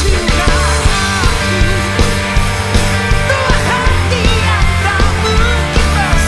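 Rock band playing live: a full band with a drum beat that peaks about twice a second and a gliding, pitched lead line over it.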